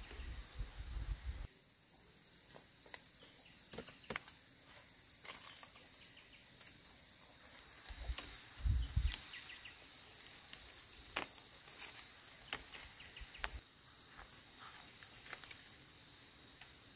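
Steady, high-pitched drone of insects such as crickets or cicadas, with scattered faint clicks and a brief low rumble about eight seconds in.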